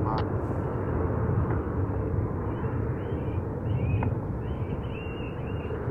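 Steady low rumble of distant airport traffic, with small birds chirping faintly from about halfway through.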